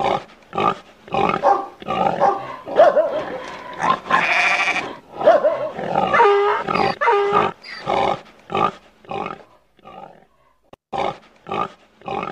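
Barnyard animal sound effects: a rapid string of short grunts and oinks, with a few longer, wavering calls in the middle.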